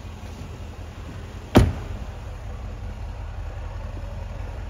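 A car door shuts with a single heavy thump about one and a half seconds in, over a steady low rumble.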